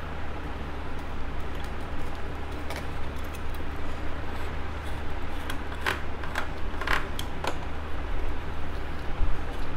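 Light metallic clicks and scrapes of a screwdriver and fingers working a circuit board loose inside an aluminium converter housing, a handful of them coming about six to seven and a half seconds in, over a steady low hum.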